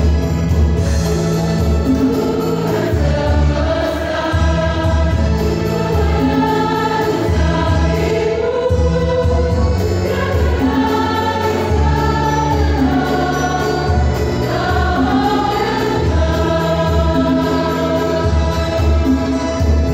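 A choir singing, with low held bass notes underneath that change every couple of seconds.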